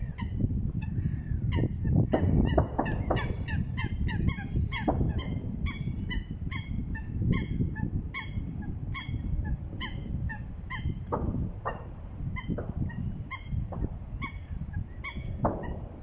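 A flock of waterfowl calling: many short honking calls, several a second, busiest in the first half, over a steady low rumble.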